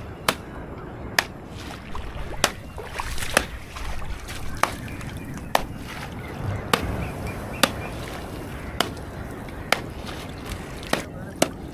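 Wali plant roots being pounded to release their fish-stunning sap: about a dozen sharp knocks, roughly one a second, over water sloshing.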